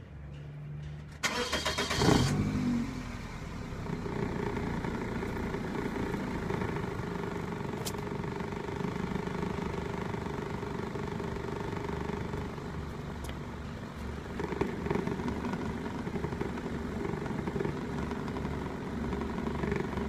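Car engine cranked by its starter about a second in, catching after about a second with a brief rev, then idling steadily.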